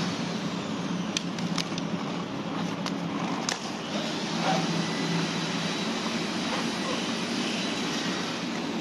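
A steady background hum with a handful of short sharp clicks and crackles in the first few seconds, as plastic stretch wrap and foam packing on a new scooter are handled.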